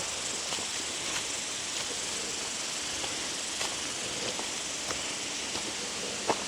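Steady high hiss of bush ambience on the track, with a few faint ticks and one sharper click near the end.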